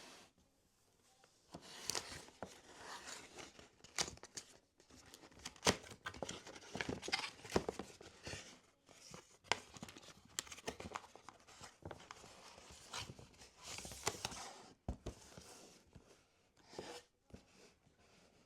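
Irregular handling sounds at close range: rustling and scraping in short bursts with sharp clicks, the loudest clicks about 4, 6 and 15 seconds in.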